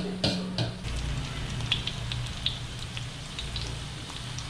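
Chopped garlic and onion sizzling and crackling in hot oil in a wok, with a couple of sharp knocks near the start.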